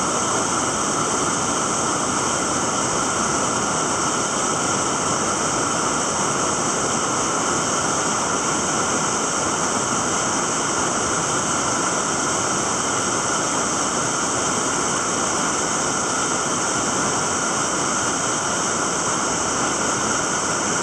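Whitewater rapid rushing steadily over rocks, a constant loud roar of churning water.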